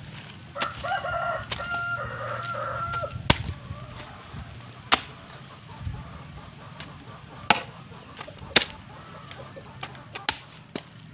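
A hoe blade chopping into wet, muddy soil, a few sharp strikes a second or so apart. Early on a rooster crows once in a long, held call.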